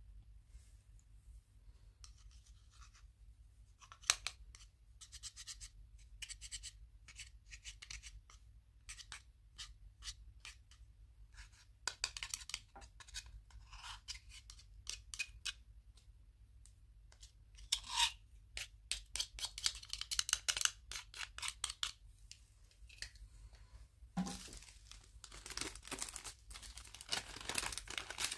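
Hands handling plastic: irregular soft clicks, taps and scrapes from a clear plastic disc held over a bowl of slime. Near the end a zip-top bag of foam beads is pulled open and rustles.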